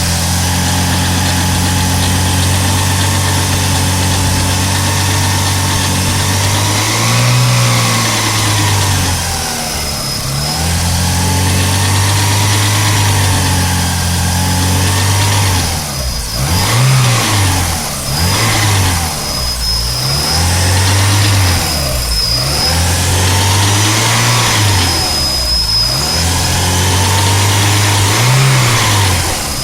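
Volvo B234FT 2.3-litre 16-valve turbo four-cylinder engine held at raised revs, then blipped up and down several times in the second half, with a thin high whistle. It shows a strange clunky noise that comes in at about 3000 rpm, cause unknown.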